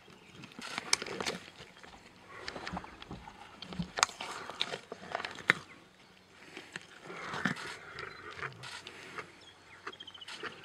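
Lions feeding on a warthog carcass: irregular biting, tearing and crunching with sharp snaps and wet chewing, some louder than others.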